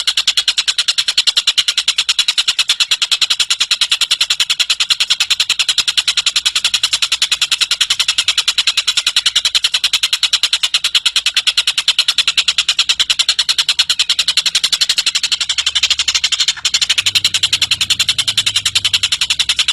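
Tengek cililin bird giving a long, unbroken, high-pitched trill of rapid, evenly spaced notes, with a split-second break near the end.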